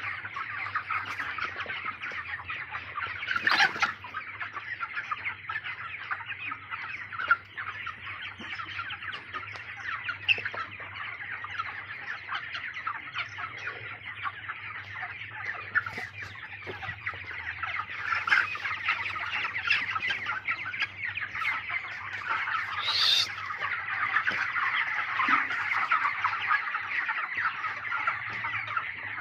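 A poultry flock of chickens clucking and calling over one another in a dense, continuous din, with a steady low hum underneath.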